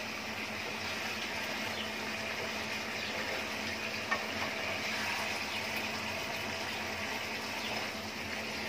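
Fish curry gravy simmering and sizzling in a pan on a gas stove as a wooden spatula stirs the fish pieces, with one sharp knock of the spatula against the pan about four seconds in. A steady low hum runs underneath.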